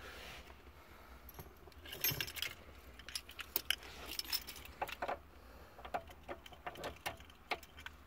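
Irregular metallic clicks and light rattles of an Opel Corsa B ignition lock cylinder being pushed and worked into its steering-column housing, with the retaining pin pressed down, not yet seating.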